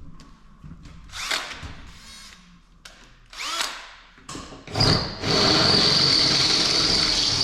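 Hand-held electric drill, triggered in two short spurts that whir up in pitch, then running steadily with a high whine from about five seconds in as it drills out holes in the truck cab.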